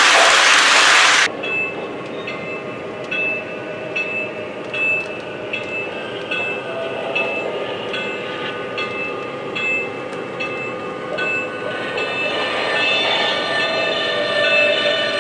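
Lionel Legacy O-scale Pennsylvania Railroad Trainmaster model freight train running: a loud rush of cars passing close cuts off suddenly about a second in, then the train's onboard sound system plays a steady diesel engine drone with rhythmic clickety-clack wheel clicks, about one and a half a second, growing louder near the end.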